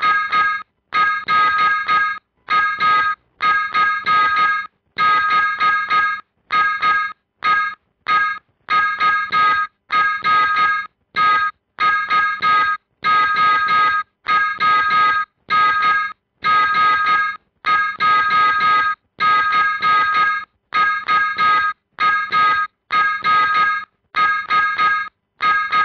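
Morse code sent as a keyed beep for receiving practice: a steady high tone switched on and off in short and long beeps, with clean silences between them, at a slow, even pace.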